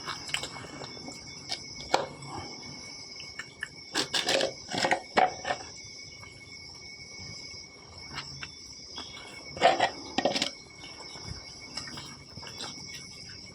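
A dog chewing roasted chicken, with bursts of sharp crunching about four seconds in and again around ten seconds in, over a steady high chirring of insects.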